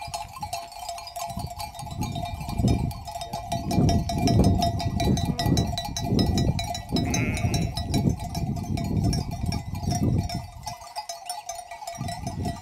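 Bells on a flock of sheep clinking, with repeated gusty low rumbling.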